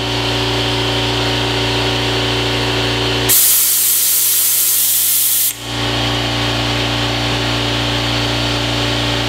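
Air-powered vacuum brake bleeder running, a steady hiss over a low hum, as it sucks air and brake fluid through a master cylinder being bench-bled. About three seconds in, the hiss grows much louder for about two seconds, then drops back to the steady level.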